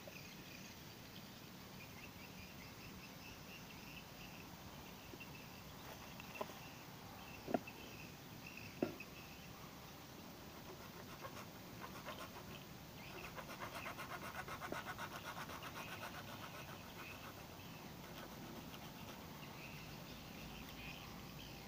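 PVC irrigation pipe and fittings being handled, faint: three sharp plastic clicks a few seconds apart about a third of the way in, and a brief fast rattle a little past the middle, over a faint outdoor background.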